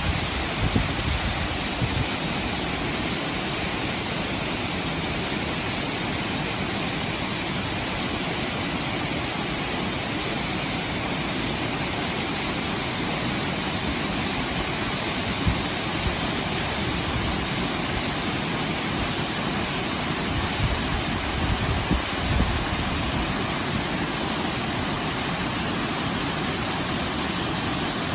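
Steady rushing noise of Baker's Falls, a 20 m waterfall, pouring over a wide rock ledge into a gorge. A few short low thumps stand out about a second in, around the middle, and again in the last third.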